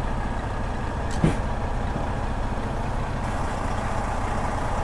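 Freightliner Cascadia semi-truck's diesel engine running steadily at low revs as the truck creeps over uneven ground, with one short sharp knock about a second in.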